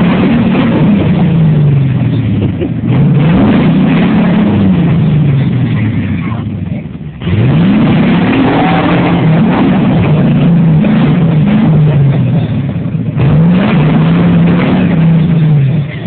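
1987 Jeep Wrangler YJ's 5.7 Vortec V8 revving hard in repeated bursts, its pitch climbing and falling several times, with a brief let-off about seven seconds in. The high revs come from the open-diff Jeep's wheels spinning in damp soil on a rocky climb, losing traction.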